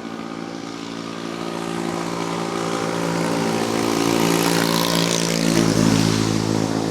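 A motor vehicle's engine running at a steady pitch, growing louder over several seconds and peaking near the end as it passes close by.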